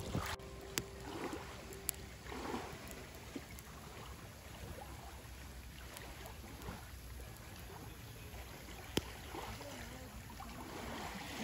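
Small waves on a loch lapping softly against shore rocks, with a handful of sharp single pops from a small wood campfire.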